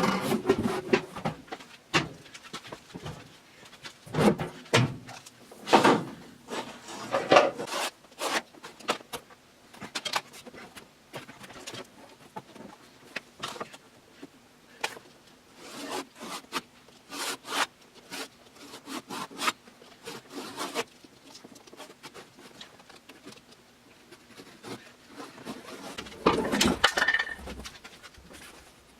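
Wood being handled and worked by hand: irregular knocks, clicks and short rubbing scrapes, with a louder stretch near the end.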